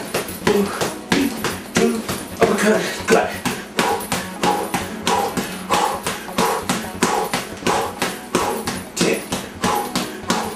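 Boxing gloves striking a heavy bag in a steady rhythm, about two punches a second, over background music.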